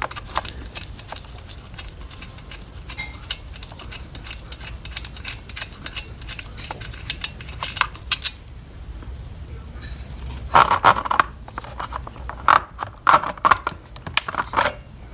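Small metal clicks and light rattling as the nuts are turned off the studs of a chainsaw's clutch cover by hand, with bursts of louder clattering near the end as the loose hardware is handled.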